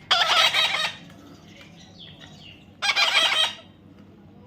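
A parrot giving two harsh squawks, each under a second long, the second about two and a half seconds after the first.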